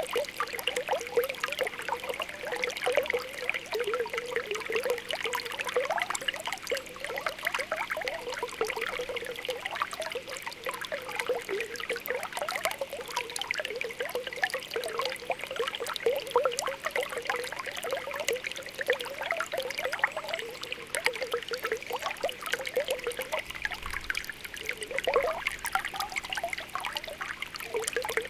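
Spring water welling up from the ground, bubbling and popping continuously over a steady trickle.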